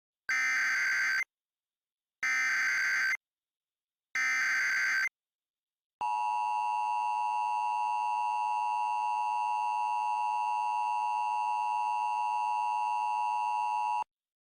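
Emergency Alert System SAME header: three bursts of digital data screech, each about a second long and a second apart. About six seconds in comes the EAS attention signal, a steady two-tone beep held for about eight seconds, which opens a civil emergency message.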